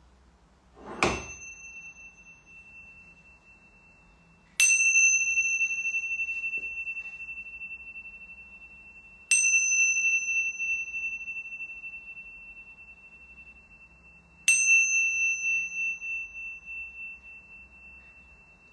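A high-pitched meditation bell or chime struck four times, each strike ringing on clear and pure with a long slow fade. The first strike is softer and comes with a dull knock; the other three are louder and come about four to five seconds apart. The bell marks the close of the silent part of the meditation.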